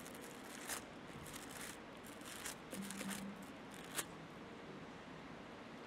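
Faint rustling and a few soft clicks of Bible pages being turned at a pulpit.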